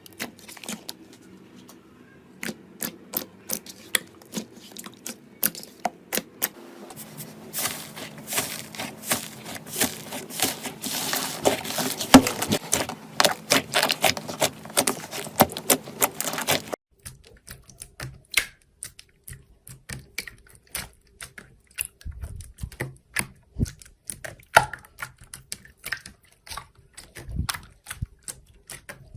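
Slime being pressed and squeezed by hand, giving off quick sharp crackling clicks. The crackling is densest and loudest in the middle, breaks off suddenly about two thirds of the way through, and sparser clicks follow.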